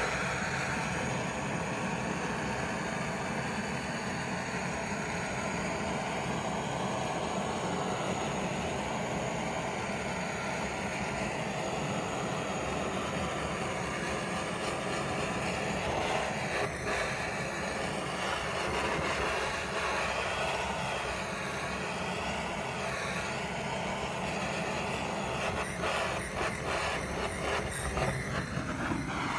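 Handheld gas-cartridge blowtorch burning with a steady rushing hiss as its open flame chars the surface of a wooden board.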